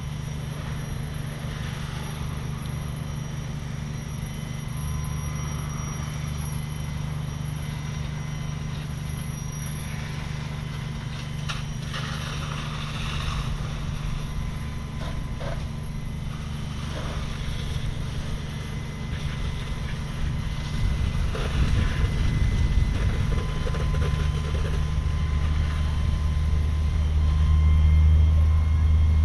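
Steady low drone of fire apparatus diesel engines running their pumps, growing louder over the last few seconds.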